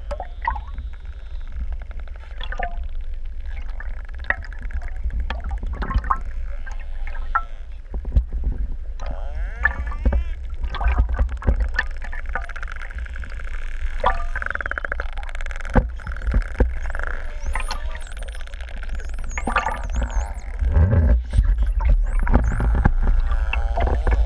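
Pantropical spotted dolphins whistling and clicking underwater: rising and falling high whistles, several of them in the second half, among rapid clicks, over a steady low underwater rumble.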